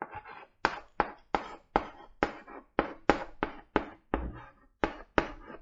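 Chalk writing on a blackboard: a quick run of taps, each followed by a short scrape, about two to three strokes a second, as a word is written out.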